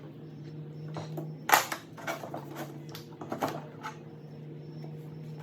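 Hand tools clicking and knocking against the chainsaw's plastic handle and fittings during reassembly: a few sharp clicks, the loudest about one and a half seconds in, over a steady low hum.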